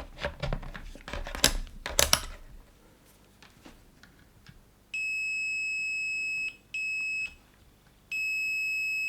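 Multimeter continuity beeper sounding a steady high-pitched tone three times: a beep of about a second and a half, a short one, then a longer one, each time the probes touch across a fuse. The beep signals continuity, showing the fuses are intact. Before the beeps come a few light clicks from the probes being handled.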